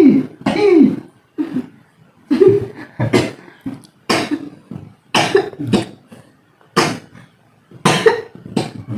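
A person coughing over and over in a long fit, about a dozen harsh coughs roughly a second apart, some with a brief voiced strain. It fits the lingering cough being treated in the session.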